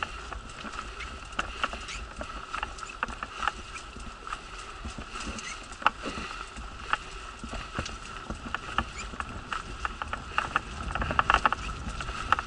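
Wheelchair rolling along a gravel path: a steady whine with irregular clicks and rattles from the wheels on the ground, coming thicker near the end.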